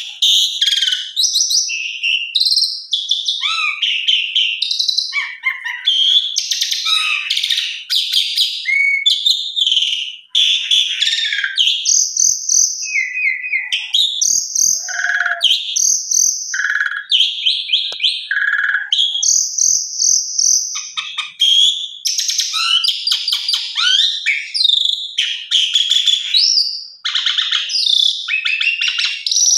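Asian pied starling (jalak suren) in full song: a long, varied run of loud whistles, chattering phrases and squeaky notes that follow one another with hardly a break. It is the vigorous, phrase-packed singing that keepers call 'gacor full isian'.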